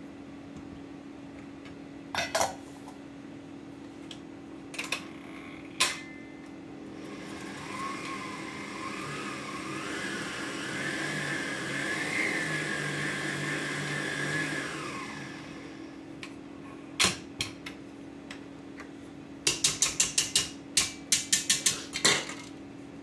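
Stand mixer's motor running its wire whisk for about eight seconds, the whine rising as it speeds up and then stopping, beating egg yolks into whipped meringue for ladyfinger batter. Before it a few clinks of a spatula on a steel bowl, and near the end a quick run of about a dozen taps as the whisk is knocked against the steel bowl.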